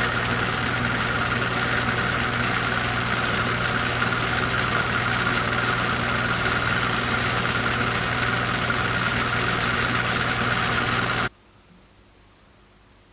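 Small lathe running steadily as it turns a nylon gear blank down in diameter. It has a constant motor hum and a faint regular tick, and stops abruptly about 11 seconds in.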